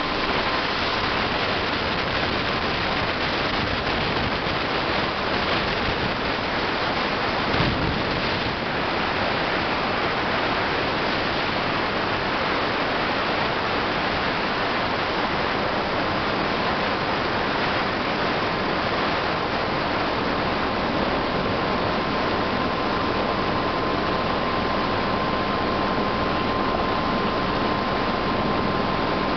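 Helicycle single-seat kit helicopter in a steady hover: continuous rotor and engine noise with a constant high whine over it, unchanging throughout.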